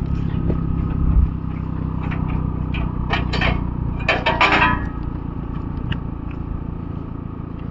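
Off-road vehicle engine running steadily at low revs, with a cluster of knocks and scraping about three to five seconds in.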